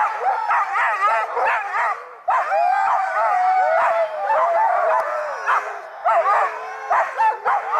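A team of harnessed sled dogs barking and yipping, many at once, with a longer howling call from about two and a half seconds in.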